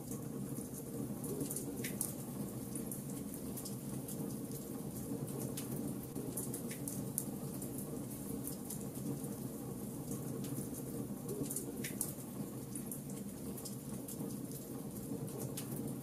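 Logs burning in a fireplace: a steady low rumble of fire with frequent sharp crackles and pops, a few louder snaps scattered through.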